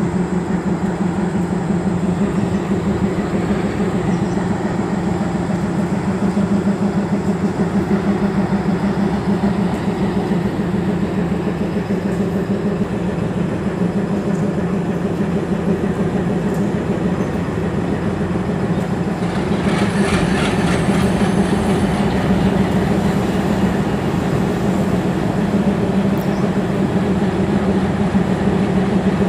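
Motorised toy diesel locomotive running on plastic track, its small motor and gears making a steady whirring drone with a fast flutter. About two-thirds of the way through comes a couple of seconds of rapid fine clicking.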